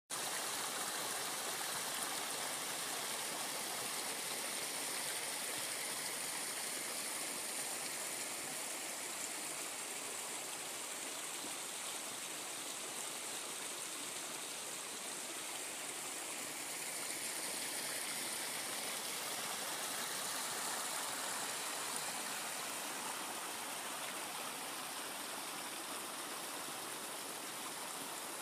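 Water pouring from a metal pipe into a rocky pool, then a small forest brook running over stones: a steady rush of flowing water, a little quieter in the middle and toward the end.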